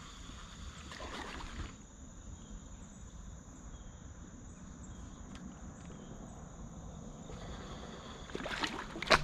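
Steady high-pitched drone of insects in the riverside woods over faint water sounds around a kayak. Near the end, water splashes loudly a few times.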